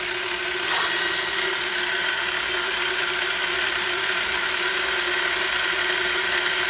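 Cylinder boring bar running with a counterbore cutter, a steady mechanical whir with a constant hum; the bar has just been started to bring the cutter down onto the cylinder and set the depth zero.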